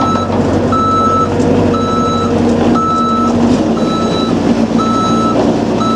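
Bobcat 331 mini excavator's travel alarm beeping about once a second, a single high tone over the steady running of its diesel engine.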